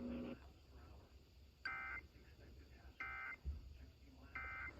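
Emergency Alert System end-of-message code: three short, identical two-tone digital data bursts about 1.3 s apart, marking the end of the alert. A low steady hum cuts off about a third of a second in.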